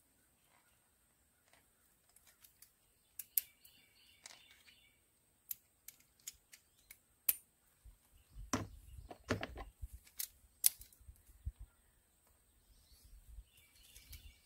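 Socket ratchet and steel bolt on the grab bar mount of a Yamaha Raptor 700: irregular sharp metallic clicks and clinks as the bolt is backed out and pulled free by hand, with a stretch of handling noise about halfway through.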